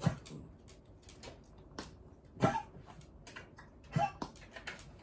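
An elderly dog coughing: three short, sharp hacks, one at the start, one about two and a half seconds in and one about four seconds in, with faint clicks in between. It is the sign of the persistent cough the dog has been suffering.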